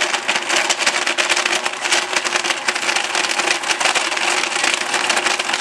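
Electric push-button countertop blender running, its blades crushing ice cubes in milk and chocolate: a steady motor hum under a constant crackling rattle of ice.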